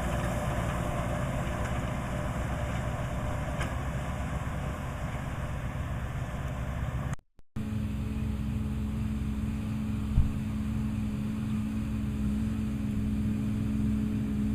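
Massey Ferguson 2600-series tractor's diesel engine running steadily. About halfway it breaks off for a moment, then resumes as a steadier, lower hum.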